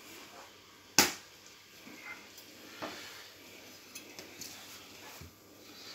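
Cutlery clacking and scraping on a ceramic plate while a knife cuts into a cooked haggis: one sharp clack about a second in, then a few lighter clicks.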